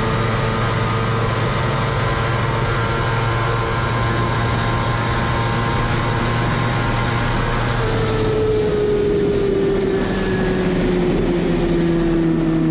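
Kawasaki ZX-10R's inline-four engine running flat out near 320 km/h under heavy wind rush. About eight seconds in, the engine note starts falling steadily as the bike slows.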